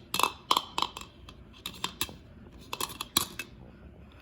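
Hard plastic toy pieces clicking and clacking together as a toddler handles them: an irregular run of about a dozen sharp knocks, in small clusters.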